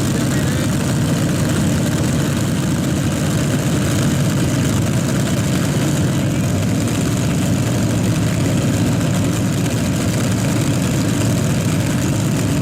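Heavy-modified pulling tractor's engine running steadily: a loud, even low rumble with no revving up or down.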